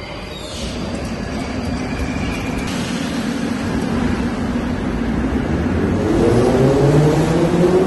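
Vintage Moscow Metro train starting off from the platform: a steady hiss, then from about six seconds in the traction motors' whine rising in pitch and growing louder as it begins to move.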